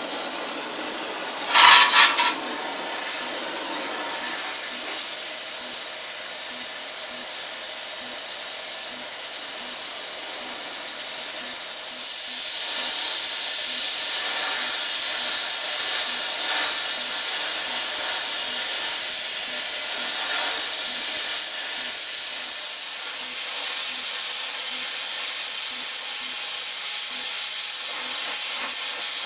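Oxy-acetylene torch with a Harris No. 5 welding/brazing tip burning with a steady hiss as its flame heats and melts the edge of a steel plate. About two seconds in there is a short, loud whistling burst, and about twelve seconds in the hiss grows louder and brighter.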